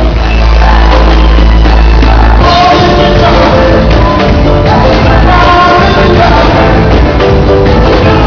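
Loud soca music from a live band with a male singer's voice over it; a heavy bass line holds for the first couple of seconds before the vocal line comes in more clearly.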